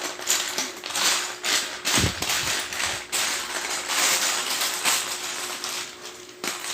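Small plastic building-brick pieces rattling and clicking as they are picked through and handled, with a single dull thump about two seconds in.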